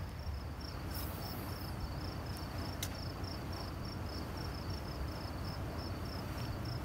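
A cricket chirping steadily, about three chirps a second, over a low steady rumble, with one sharp click about three seconds in.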